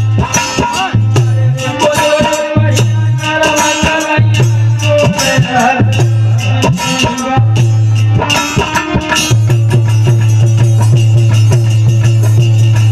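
Indian devotional folk music on a keyboard instrument, with a low bass note repeating about once a second and percussion strikes under a wavering melody. About nine seconds in, the melody gives way to steady held chords.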